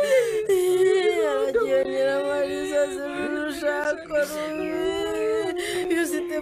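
Mournful singing in long, drawn-out notes that glide slowly up and down: a lament for the dead.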